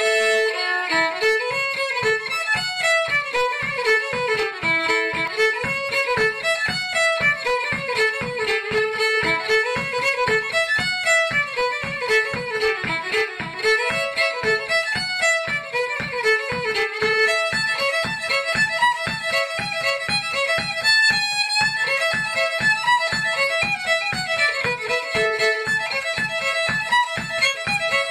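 Unaccompanied fiddle playing a lively tune in quick bowed notes, often sounding two strings at once.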